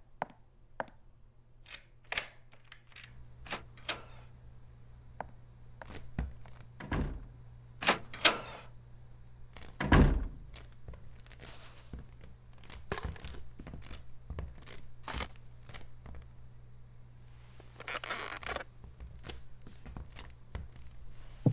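Sound effects of an animated film: quick footsteps on a wooden floor at the start, then scattered knocks and thuds, the loudest a heavy thump about ten seconds in. A low steady hum comes in about three seconds in, and a short rustling noise is heard near the end.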